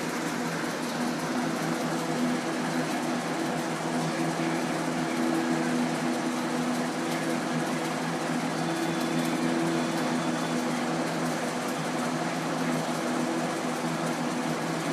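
Mid-1980s Galaxy box fan running on its high setting: a steady rush of air with a steady motor hum.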